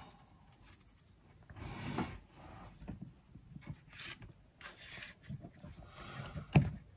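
Hands crumbling and pushing aside damp peat-and-perlite potting mix around a plant's root ball on a tray: scattered soft rustling and crackling, with one louder knock near the end.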